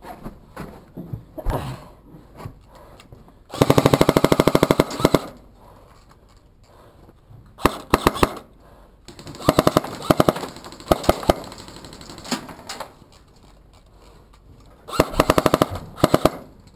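Airsoft guns firing rapid bursts of shots: a long burst about four seconds in, several short bursts in the middle, and another burst near the end.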